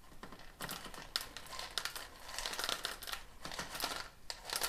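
Expanded clay pebbles being poured by hand into a plant pot around the roots: many small, irregular clicks and rattles of light pebbles.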